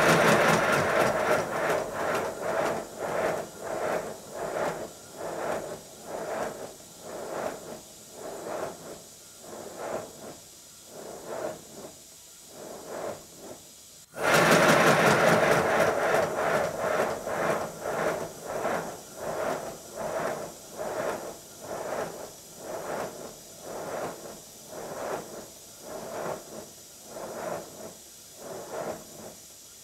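Exhaust beats of a model LBSC 'Speedy' pannier tank locomotive running on compressed air on a bench rolling road: a rhythmic chuffing that starts fast and loud, then slows and fades as the air supply runs down. About halfway there is an abrupt cut, and a second run starts loud and fast and slows again.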